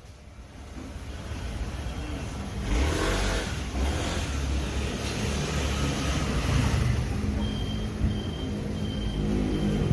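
Mercedes-Benz OM654 four-cylinder diesel engine running at idle, growing louder over the first few seconds with a brief surge about three seconds in. The owner reports an abnormal noise coming from near the air filter at idle.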